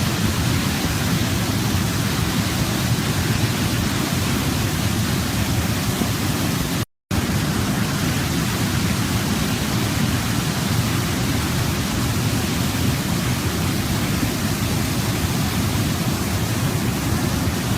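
Steady rushing of a waterfall, cascading water with its weight in the low rumble. The sound cuts out completely for a split second about seven seconds in, then resumes unchanged.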